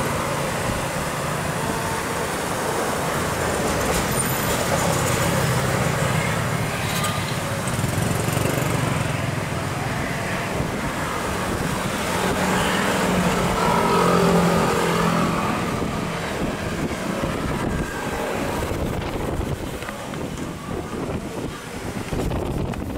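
A steady low engine drone under a broad rush of wind and water noise, swelling slightly midway and easing off toward the end.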